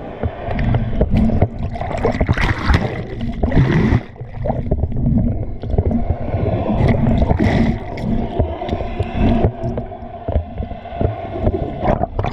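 Water sloshing and gurgling close to the microphone, loud and uneven.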